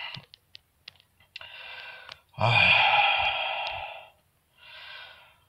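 A man sighing: a long breath out that starts loud and fades over more than a second, with softer breaths before and after it, and a few small mouth clicks near the start.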